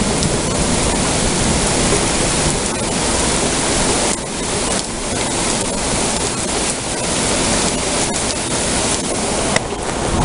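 Heavy rain pouring down steadily during a thunderstorm, a dense even hiss that eases for a moment about four seconds in.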